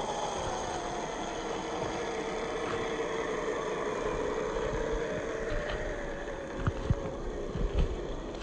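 Whine of an Axial SCX10 III RC crawler's brushed 540 motor and gearbox under drive, a steady pitched whine that rises slightly in pitch past the middle. A few sharp knocks near the end.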